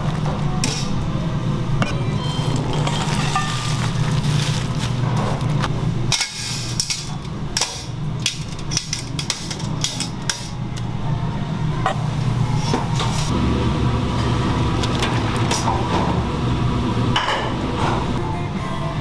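Stainless steel knocking and clinking as a mesh stock basket is handled and its perforated lid is latched shut, over a steady low hum.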